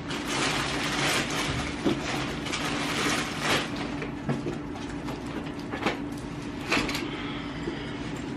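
Packing noises: clothes, bags and a soft suitcase being handled and rustled, with scattered clicks and knocks, busiest in the first few seconds and again near the end. A steady low hum runs underneath.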